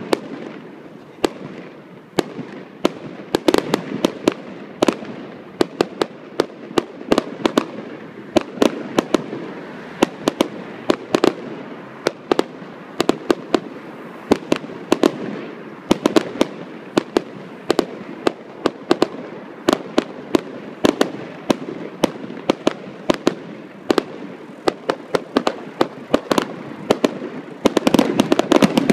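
Fireworks display: a continuous run of sharp bangs and crackles from aerial shells bursting overhead, over a low rolling haze of sound. In the last second or so the bangs come thicker and louder as a bigger volley goes up.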